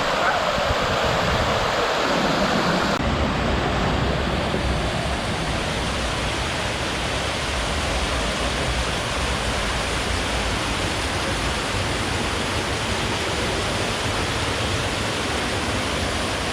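Waterfall's rushing water, a loud steady wash of noise. About three seconds in the sound shifts abruptly and takes on more low rumble.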